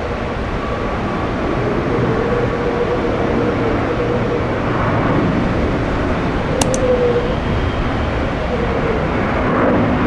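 Loud, steady rumble of jet airliner engines with a faint steady whine in it; two sharp clicks about two thirds of the way through.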